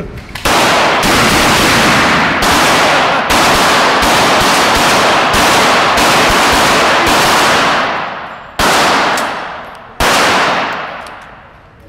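Pump-action shotgun fired in a rapid string of shots, the blasts coming less than a second apart and their echoes running together in the concrete indoor range. Two more single gunshots follow, about eight and a half and ten seconds in, each ringing out and dying away slowly.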